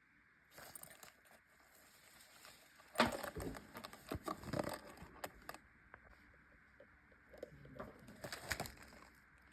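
Bags being handled: intermittent rustling and light clicks and knocks in two spells, one about three seconds in and another near the end.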